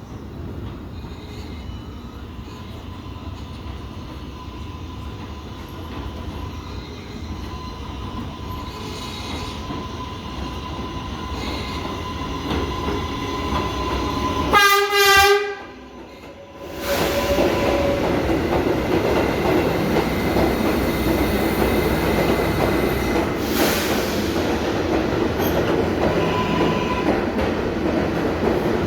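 An R188 subway train on the elevated (7) line gets louder as it approaches. About halfway it gives one short horn blast, then it passes the platform loudly, with wheels clattering over the rail joints.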